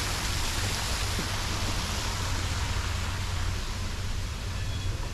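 Steady outdoor noise: an even rushing hiss over a low rumble, with no distinct events.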